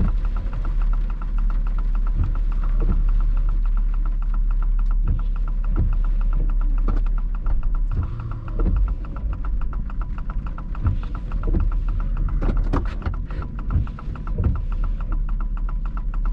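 Steady low rumble inside a vehicle's cabin with the engine running, with irregular knocks and the windshield wipers sweeping over the wet glass.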